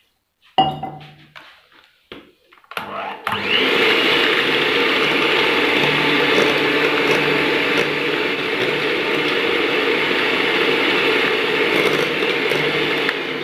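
Electric hand beater starting about three seconds in and running steadily, its twin beaters churning cultured cream into butter after water has been added at the stage where butter lumps have formed. Before it starts there is a sharp knock about half a second in, as water is poured into the bowl.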